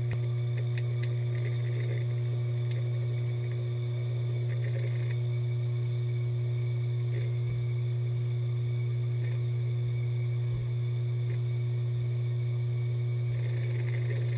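Hitachi Deskstar 7K1000.C 500 GB 3.5-inch hard drive running steadily at its full 7,200 RPM just after spin-up. It makes a loud, even hum with a fainter high whine, broken every second or two by brief scratchy ticks, with a longer patch of them near the end.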